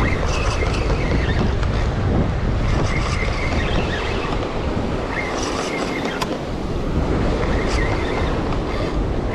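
Ocean surf washing over a rock ledge, with wind buffeting the microphone: a steady, loud roar.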